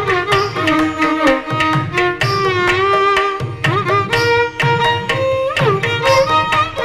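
Carnatic violin playing a thillana in raga Mohana Kalyani, the melody sliding and bending between notes, over a steady rhythm of hand-drum strokes.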